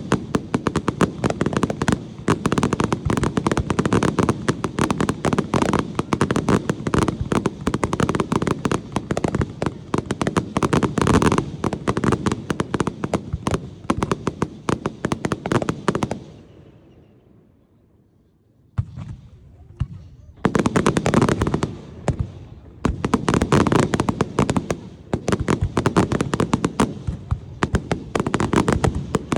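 Fireworks at close range: dense, rapid crackling and popping of many shells bursting at once. It dies away about sixteen seconds in to a short lull, then starts up again in clusters.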